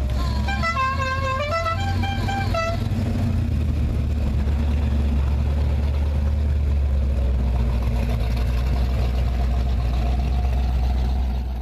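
A musical vehicle horn playing a short tune of several changing notes during the first three seconds, over a steady low engine rumble that carries on throughout.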